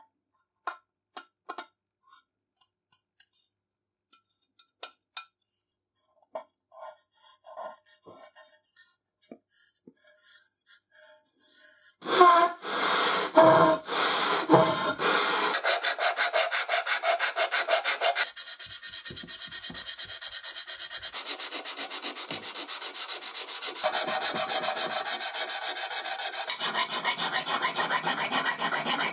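A cast aluminium lamp housing rubbed by hand on sandpaper laid over a flat metal plate to flatten its face. Light taps and handling clicks come first, then from about halfway in there is a loud, steady rasping in fast back-and-forth strokes.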